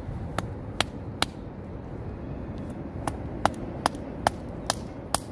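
A mallet strikes a railroad spike wedged between two 360-degree magnet-fishing magnets that are stuck together, driving them apart. There are nine sharp metallic taps: three in the first second and a half, then after a pause six more, a little over two a second.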